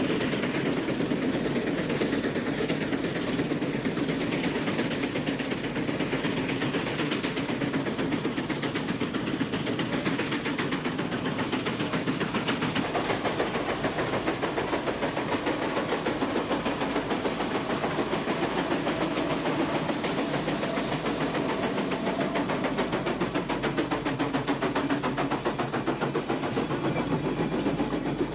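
Steam traction engines working, their exhaust beating in a fast, even rhythm with a steady hiss of steam.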